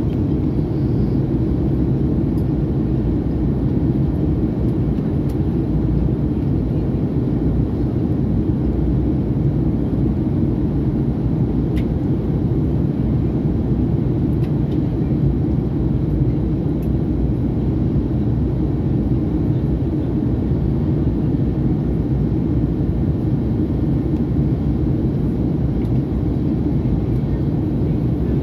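Steady low rumble of cabin noise inside a Fokker 100 airliner in flight, from airflow over the fuselage and its two rear-mounted Rolls-Royce Tay turbofans.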